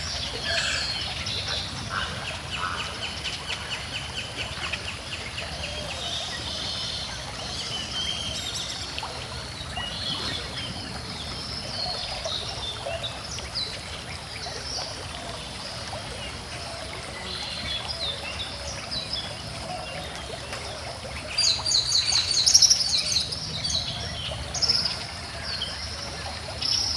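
A small stream trickling and flowing steadily while several birds sing and chirp. A rapid trill of repeated notes comes a few seconds in, and a loud burst of quick, repeated song notes about three quarters of the way through.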